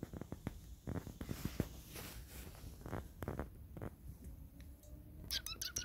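Handling noise from a handheld camera: scattered clicks and rustles over a low rumble. Brief high-pitched chirping a little after five seconds in.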